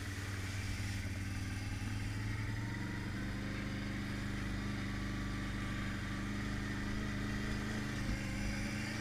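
ATV engine running as the quad rides along a dirt trail, a steady note that shifts slightly about three seconds in.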